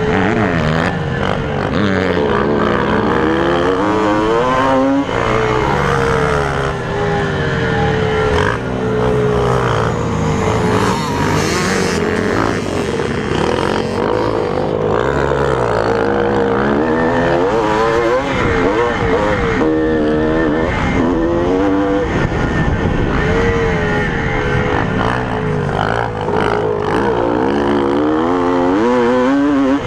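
Air-cooled single-cylinder two-stroke engine of a 1981 Suzuki RM250 motocross bike at race pace, its pitch climbing and dropping again and again as it revs out, shifts and backs off for corners.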